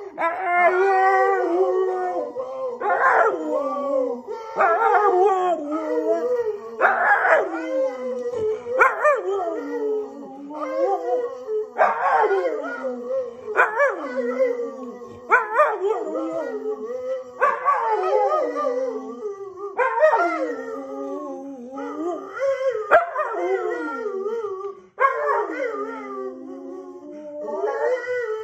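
Husky–boxer mix dog howling over and over, with about a dozen long wavering howls that rise and then slide down in pitch. A man howls along with him, their howls overlapping.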